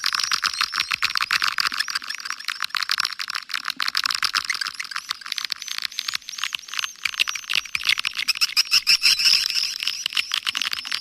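Swiftlet lure call: a dense, continuous chorus of swiftlets twittering, many rapid high chirps and clicks overlapping, with no low end. It is the kind of call track played in swiftlet nest houses to draw the birds in.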